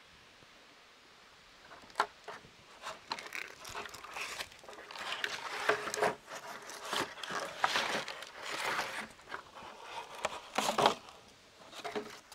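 A person climbing a tree: irregular scraping and rustling against bark and clothing with a few sharp knocks, starting about two seconds in and busiest in the middle.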